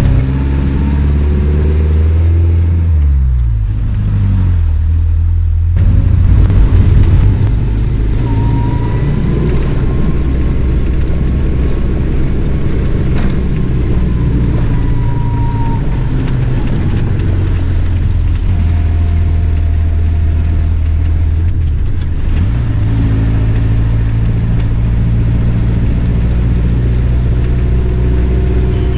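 Off-road 4x4's engine running as it drives on a dirt road, heard from inside the cabin with tyre and road noise. The engine note falls about two to four seconds in, holds steady, then climbs again a little past two-thirds of the way through.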